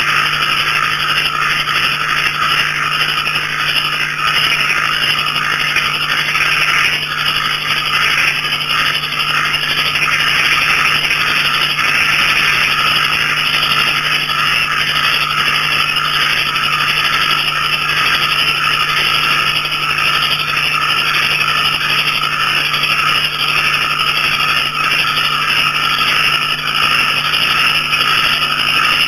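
Night chorus of small frogs and crickets calling together in a dense, unbroken trill, with a faint steady low hum underneath.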